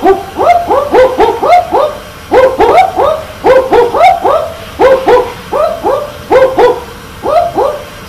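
Barking owls calling: a rapid run of short, dog-like barks, mostly in quick pairs, from two birds at slightly different pitches that overlap, with brief pauses about two seconds in and near the end.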